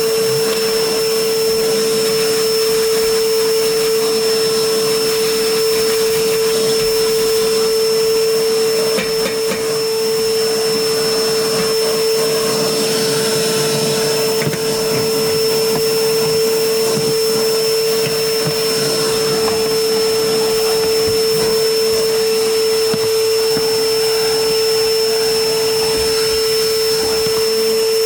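Vacuum cleaner running steadily on a car's interior carpet: a constant pitched hum with a thin high whine over the rush of air.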